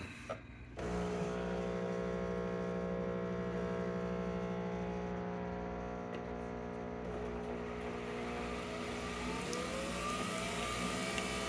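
Nespresso capsule machine's pump winding up after the brew button is pressed, starting about a second in and then running as a steady buzzing hum. Some of its tones rise in pitch near the end as it gets going on the brew.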